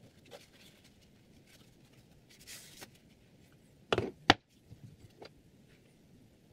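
Sharpening stones being handled and picked from a stack: a short scraping slide about two and a half seconds in, then two sharp clacks about four seconds in, followed by a few light clicks.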